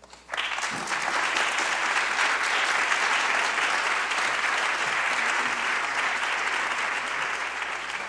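An audience applauding: the clapping breaks out suddenly just after the start and keeps up steadily.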